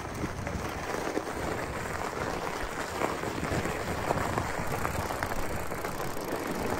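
Wide knobby tyres of a Surly Ice Cream Truck fat bike rolling over snow: a steady crunching hiss with small crackles and clicks throughout.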